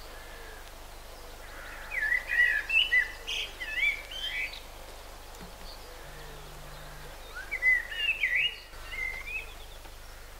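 A songbird singing two short warbling phrases of quick rising and falling notes, one about two seconds in and one about eight seconds in, over a faint steady background noise.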